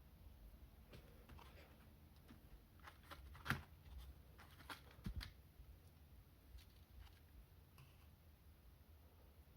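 Near silence with faint handling noises: light rustles and a few small clicks, the sharpest about three and a half seconds in, as the packaging of an N-gauge model train set is handled.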